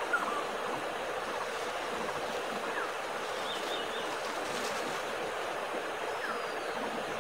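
Steady outdoor background noise, an even hiss, with a few faint, short high chirps scattered through it.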